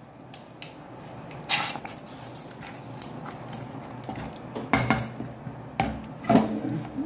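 Wooden spoon stirring thick cooked lentil dal in a metal pot, with scattered knocks and clinks of the spoon against the pot, the loudest in the second half, over a low steady hum.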